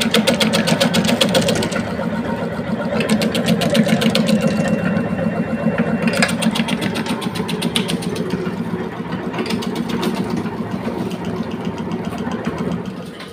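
Areca nut (supari) sliver-cutting machine running: a steady hum from its half-horsepower single-phase electric motor, with spells of rapid clicking as the six blades chop the nuts.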